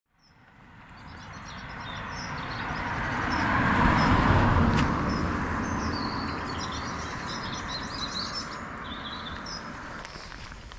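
Small birds chirping and twittering, while a car passes on the road, its tyre and engine noise swelling to a peak about four seconds in and then slowly dying away.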